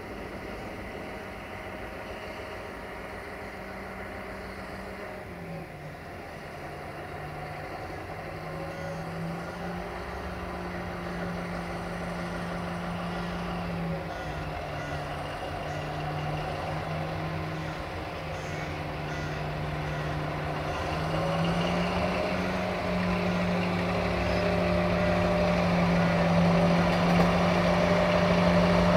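Diesel-hydraulic shunting locomotive's engine working as it moves a string of tank wagons, its engine note dropping and rising several times as the engine speed changes. It gets louder toward the end.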